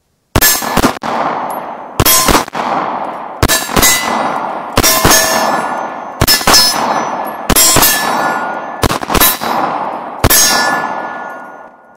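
Semi-automatic pistol fired at steel plate targets, about eight shots or quick groups of shots roughly a second and a half apart. Each is followed by the clang of the steel plates ringing, which dies away after the last shot.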